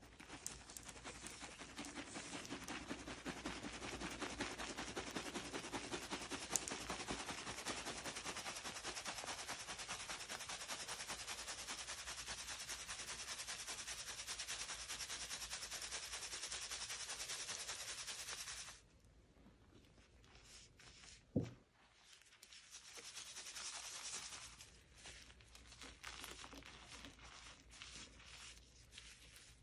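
Powdered gym chalk shaken through a metal mesh strainer: a fast, steady rattle and hiss of chalk and dyed chalk chunks in the mesh. It stops suddenly about two-thirds through, followed by a single thump and then softer crumbling of chalk pieces crushed by hand.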